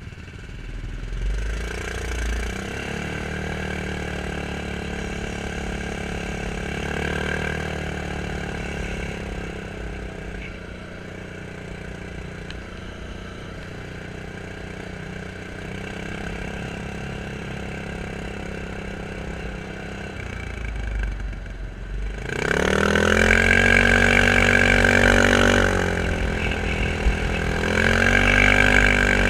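Quad bike engine running at low revs, then revved up hard about three quarters of the way through, its pitch rising twice as it accelerates.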